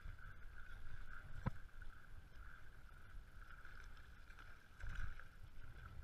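Wind buffeting an outdoor action-camera microphone as uneven low rumble, with a faint steady high whine over it and a single sharp click about a second and a half in.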